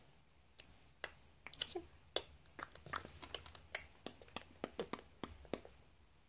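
Baby's mouth making soft wet smacking and clicking sounds as he mouths and chews, a faint irregular string of small clicks about three or four a second.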